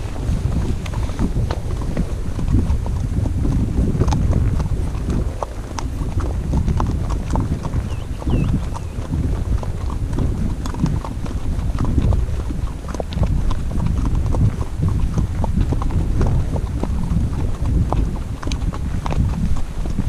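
Hooves of Icelandic horses clip-clopping on a dirt track, heard from the saddle, as a steady run of irregular hoofbeats over a low rumble.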